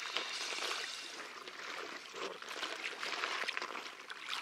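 A hooked silver bream splashing and thrashing at the water's surface as it is drawn into the shallows: irregular splashing with a louder splash near the end as it comes out of the water.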